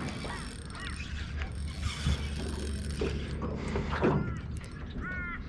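Fishing reel working while a hooked fish is fought: the reel's mechanism whirs and clicks, with a few short squeaks.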